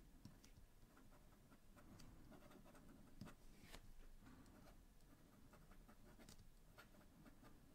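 Kenzo by Stypen fountain pen's medium steel nib writing on smooth heavy Clairefontaine DCP paper: a faint scratching with small ticks as strokes start and stop. The nib sings a little as it glides.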